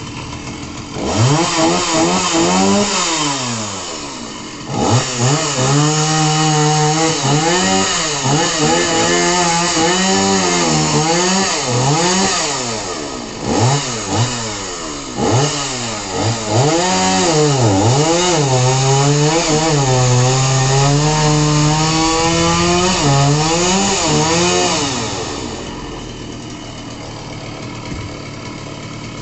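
Chainsaw engine revving up and down over and over, its pitch rising and falling many times. It drops back briefly about four seconds in and eases down to a lower, steadier running sound near the end.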